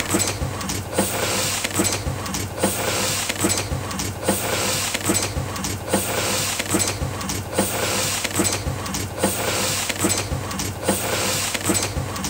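Letterpress printing press running: a steady hum under a regular mechanical clatter that repeats a little faster than once a second.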